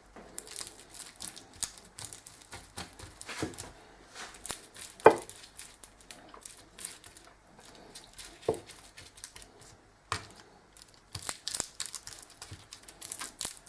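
Butter being mashed and mixed into the insides of hot baked potatoes with a utensil: irregular scraping and crunching with clicks and knocks of the utensil on the plate, the sharpest knock about five seconds in.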